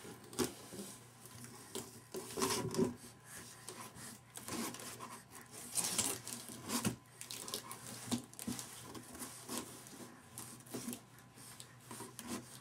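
Cardboard box flaps being rubbed, scraped and torn at irregular moments as a baby paws at them and pulls the packing tape off.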